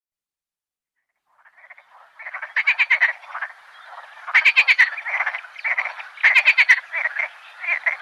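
Frogs croaking in a chorus. After about a second and a half of silence, calls come in as rapid pulsed croaks. A loud burst of fast pulses comes roughly every two seconds over quieter calling.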